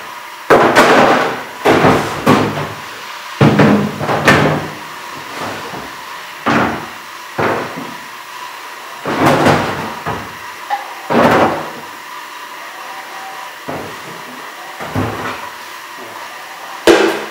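Hollow plastic parts, the vent pipe sections and other pieces packed inside a portable toilet's tank, knocking, clattering and scraping against the plastic tank as they are lifted out: about a dozen sharp knocks at irregular intervals, each with a short ring.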